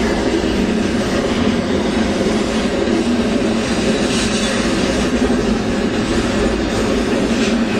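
Intermodal freight train cars, trailers and containers on flatcars, rolling past close by: a steady, even noise of steel wheels on the rails with no breaks.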